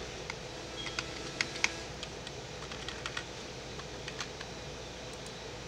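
Light keystrokes on a computer keyboard: a scattering of sharp clicks at uneven intervals over a faint steady hum.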